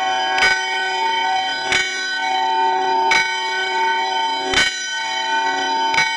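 A church bell tolling, struck five times at an even pace of about one stroke every second and a half, each stroke ringing on into the next.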